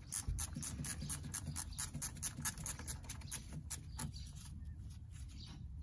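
Small ratchet wrench clicking in quick, uneven strokes while loosening a car battery terminal nut; the clicks thin out about four seconds in.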